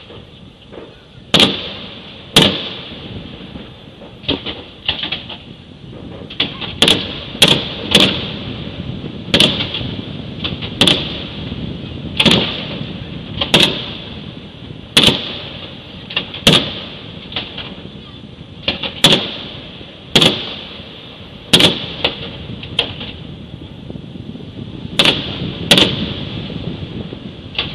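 Aerial firework shells bursting in a steady series of loud bangs, about twenty in all, roughly one every second or so, each fading out briefly.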